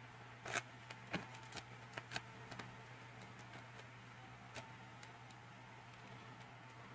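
Light plastic clicks and taps from handling a Marvel Legends Captain America action figure and fitting its shield onto the figure's hand or arm: a quick run of clicks in the first couple of seconds, one more near the middle.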